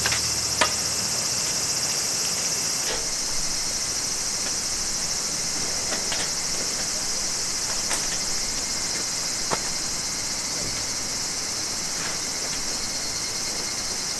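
A steady, high-pitched chorus of insects, with a few short sharp clicks and knocks scattered through it as camping gear is unpacked and a folding table frame is set up.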